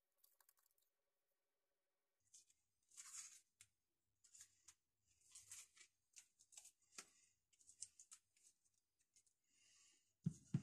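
Masking tape being peeled and torn off a wooden hammer handle: faint, intermittent crinkling and tearing. A soft knock comes near the end as the hammer is set down on the cutting mat.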